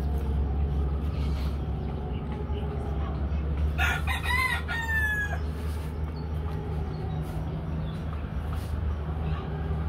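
A rooster crows once, about four seconds in, a call of under two seconds that ends on a held note. A steady low rumble runs underneath.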